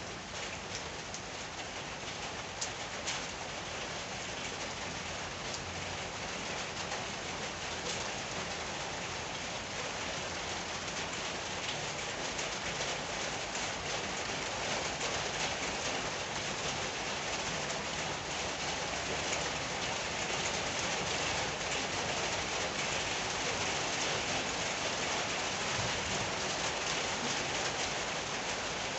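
Steady rain falling: a dense, even hiss full of small drop patters, growing slowly a little louder.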